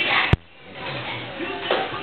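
Jukebox playing a record with singing, cut by a single sharp click about a third of a second in; the music drops away for a moment and comes back within about half a second.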